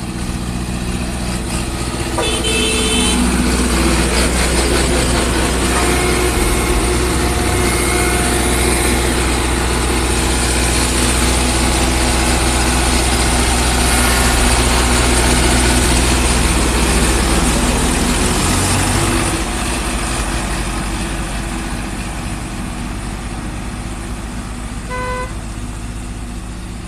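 Road roller's diesel engine running hard under load, louder for most of the stretch and easing off about two-thirds of the way through. There are short beeps about two seconds in and near the end. The roller's pump is said to be badly worn.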